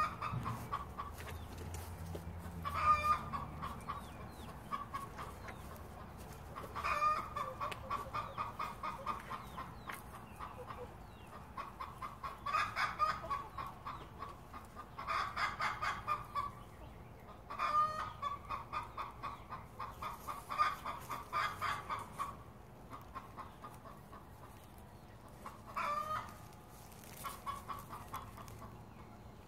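A few hens clucking in repeated bouts, each a second or two of rapid, quickly repeated notes, with short quieter gaps between.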